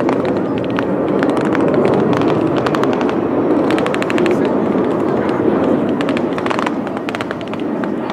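F-16 fighter jets passing overhead: a loud jet-engine roar with rapid crackling through it, swelling in the first couple of seconds and easing slightly near the end.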